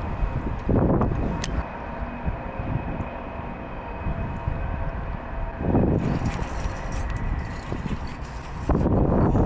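Wind rumbling on the microphone, gusting louder about a second in, again near six seconds and near the end.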